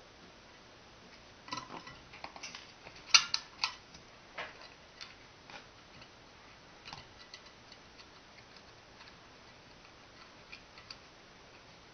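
Small clicks and taps of thin wire and metal parts being handled on a wooden base as the coil's wire leads are wrapped around the nail terminals of a homemade telegraph. A cluster of sharper clicks comes about one and a half to four seconds in, then only scattered faint ticks.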